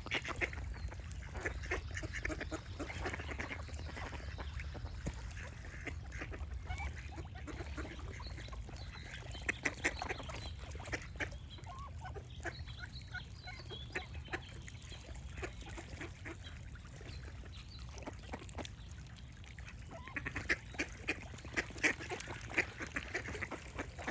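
Ducks quacking in runs of short calls, loudest about ten seconds in and again near the end, with faint birdsong between them and a steady low hum underneath.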